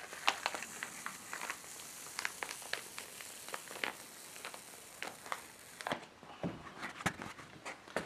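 A sheet of printing paper being peeled slowly off a freshly inked woodcut block, the paper pulling away from the tacky ink in a faint run of small ticks and crackles. The crackling thins out about six seconds in.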